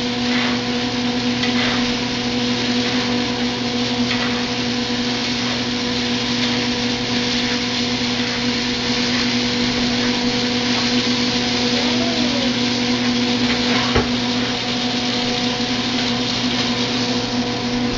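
Kitchen range-hood exhaust fan running steadily, a droning hum with a broad whooshing noise, loud enough that it drowns the pan. A single knock about three-quarters of the way through.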